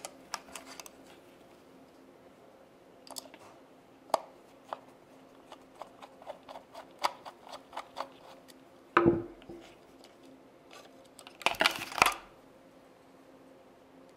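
Small metallic clicks and ticks of a screwdriver turning screws that mount a fan cooler onto a hard drive, scattered over several seconds, with two louder short clatters of the parts being handled near the middle and the end.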